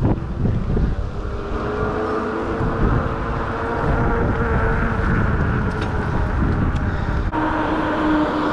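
Wind rumbling on the microphone of a moving Ecotric 500 W electric bike, with the motor's steady whine. About seven seconds in, the whine switches abruptly to a lower steady pitch.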